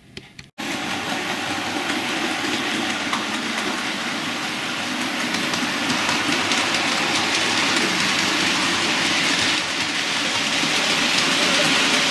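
OO gauge model Class 33 diesel locomotive running on the layout's track, a steady whirring rumble of motor and wheels on rail that slowly grows louder.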